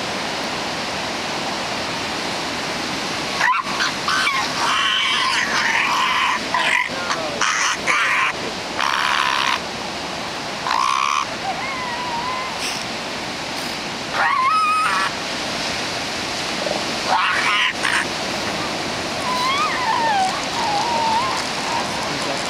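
Elephant seals calling in short, scattered bursts, some harsh and some wavering up and down in pitch, over a steady hiss of surf.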